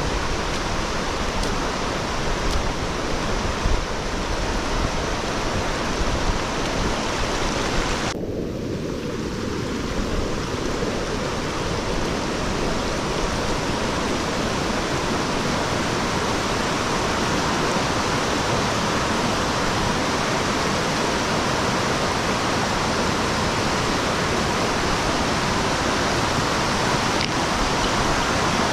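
Steady rush of fast-flowing floodwater. The higher hiss drops away for a couple of seconds about eight seconds in, then returns.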